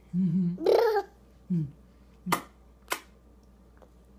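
An eleven-month-old baby babbling and vocalizing, a short burst of sounds rising in pitch. About two seconds in come two sharp knocks, about half a second apart.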